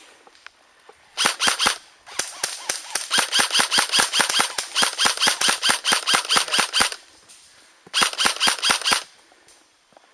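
Airsoft gun firing in rapid strings of sharp shots: a short burst, a long run of about five seconds, then another short burst near the end.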